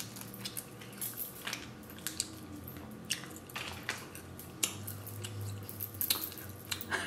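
Eating sounds from a seafood boil: chewing and wet squishing of crab with scattered sharp clicks and crackles as shell is picked apart.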